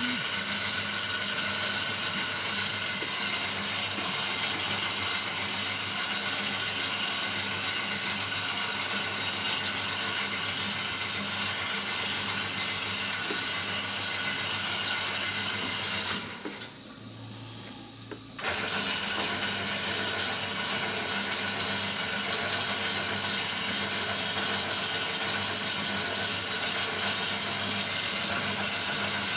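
Steady mechanical running noise from a machine, holding several steady tones. It drops away for about two seconds midway, then returns as before.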